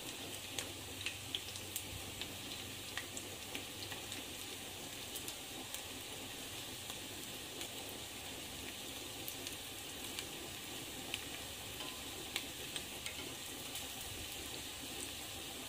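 Corn fritters shallow-frying in hot oil: a steady sizzle with frequent small pops and crackles.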